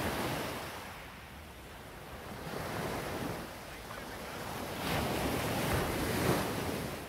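Sea waves breaking and washing up a beach, the noise swelling and ebbing about three times, with wind on the microphone.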